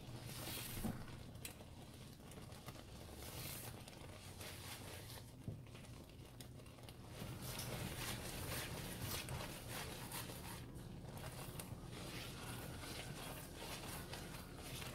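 Silicone spatula stirring and scraping a thick coconut and condensed-milk mixture around a nonstick frying pan: soft, irregular scraping strokes.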